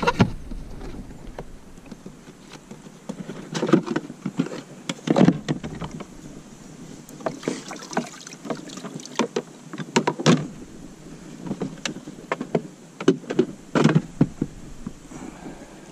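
Irregular knocks, clunks and rattles of a pedal-drive unit being unlatched and lifted out of its well in a plastic kayak hull.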